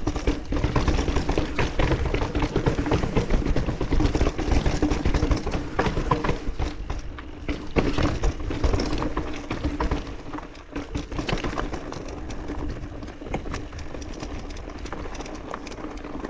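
Mountain bike rolling fast down a rough, rocky trail: tyres crunching over stones and the bike rattling and clattering. Loudest and busiest for the first ten seconds, then a little quieter as the trail smooths out.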